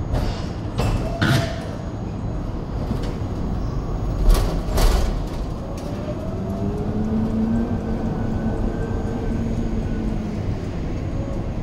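Electric pallet truck running a loaded pallet of fruit crates into a refrigerated trailer: a few sharp knocks in the first five seconds, then its motor whining, rising and falling in pitch, over a steady low rumble.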